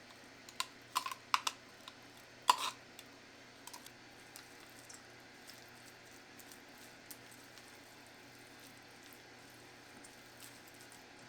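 A few sharp clicks and knocks of kitchen utensils being handled, with one louder knock about two and a half seconds in, then only faint scattered ticks.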